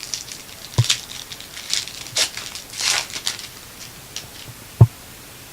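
A foil trading-card pack wrapper being torn open and crinkled by hand for about three seconds, with two short low thumps, one about a second in and a louder one near the end.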